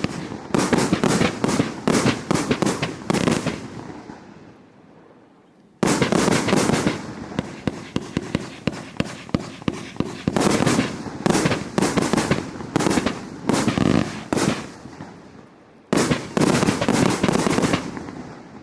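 108-shot firework cake with 30/36 mm tubes firing rapid volleys of sharp reports. The shots die away twice, about four seconds in and again around fifteen seconds, then restart suddenly, fading out near the end as the cake finishes.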